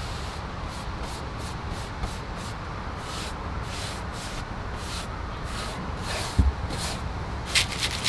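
Stain brush stroking across wooden garage-door trim: short, quick swishes about two to three a second, over a steady low background rumble, with one low thump about six seconds in.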